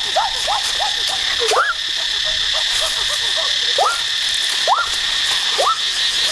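A steady, high-pitched insect drone, cicada-like, with short rising chirps over it about once a second.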